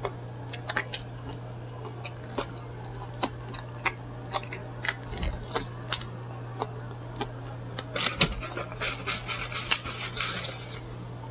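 Sandwich wrapper paper crinkling and crackling: scattered sharp crackles that thicken into a dense burst of crinkling near the end, over a steady low hum.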